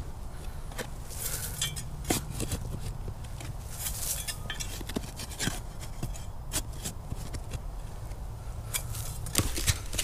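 Digging in sandy soil: scattered scrapes and crunches of a spade and of boots moving around the hole, over a steady low rumble.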